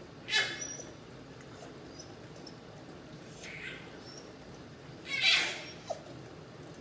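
A dog whining in short, high-pitched cries, three times: one just after the start, a fainter one midway, and the loudest near the end.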